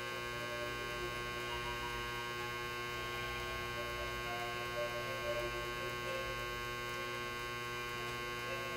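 Steady electrical mains hum, a constant buzz made of many even tones, with a couple of faint light taps about halfway through.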